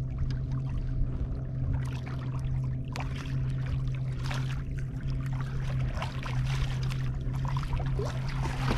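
Small waves lapping and splashing against a kayak's hull in irregular little slaps, over a steady low hum.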